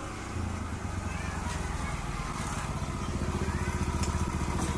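Small motor scooter engine running as the scooter rides up close, growing steadily louder as it approaches.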